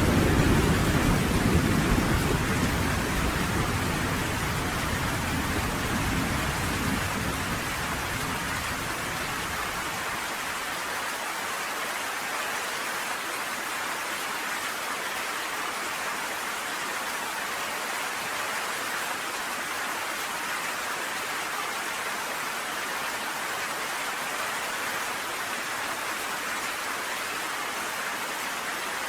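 Steady heavy rain, with the low rumble of a thunderclap dying away over the first several seconds.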